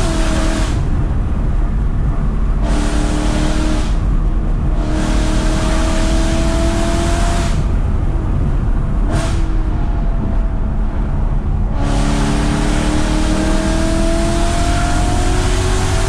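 BMW E92 M3's 4.0-litre V8 heard from inside the cabin, with revs climbing steadily under throttle, then the exhaust note dropping away as the throttle is lifted. This happens several times, with a short throttle blip in the longest lift.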